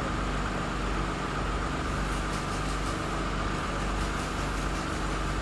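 Crane engine running steadily as it lifts a cut-out road section, a low drone with a steady whine above it.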